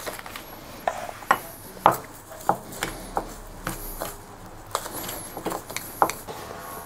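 A metal utensil stirring dry spice rub in a small metal cup, with a dozen or so irregular sharp clinks against the cup, the loudest about two seconds in.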